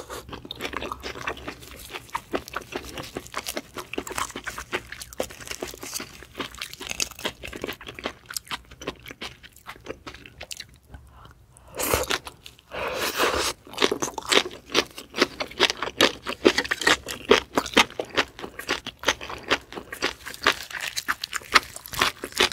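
Close-miked chewing of scallop meat: rapid wet smacking and clicking mouth sounds, with a louder stretch about twelve seconds in as another piece goes into the mouth.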